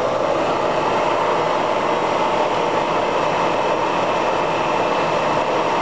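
Lagun FTV-2S vertical mill's spindle running steadily at about 2100 RPM, driven by its 3 HP main motor.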